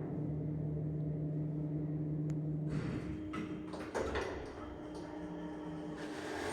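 Old passenger lift machinery running with a steady electric hum. Around three seconds in the hum changes pitch amid several sharp clicks, and a clunk follows about four seconds in.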